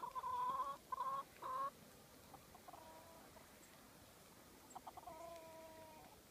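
Chickens calling: three loud, short pitched calls close together in the first second and a half, then a fainter call and, near the end, a longer drawn-out call.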